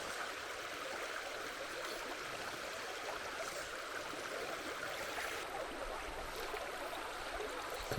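Steady rush of a spring-fed creek's flowing water.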